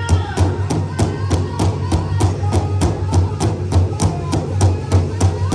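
Large powwow drum struck in unison by a circle of drummers with padded drumsticks, a fast, steady beat of about five strokes a second.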